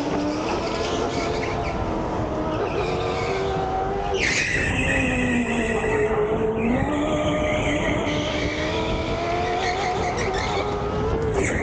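Biz electric go-kart motor whining, its pitch rising and falling as the kart speeds up and slows through the corners, over tyre noise on the track. The sound changes abruptly about four seconds in and again near the end.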